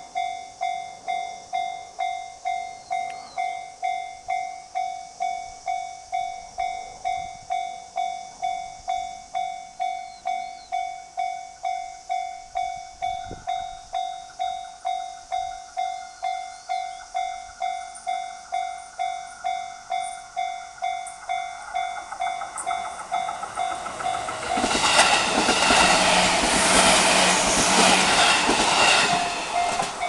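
Japanese level-crossing warning bell ringing in steady, evenly repeated dings. Near the end a JR Sagami Line electric train passes over the crossing loudly for about five seconds, its wheels clattering over the rail joints.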